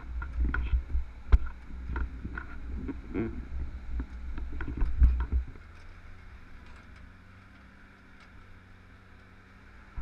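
Dodge M37 military truck driving through a shallow rocky river: a rough engine rumble with knocks and thumps as the truck jolts over the stones. About five and a half seconds in, it drops abruptly to a quiet, steady low hum.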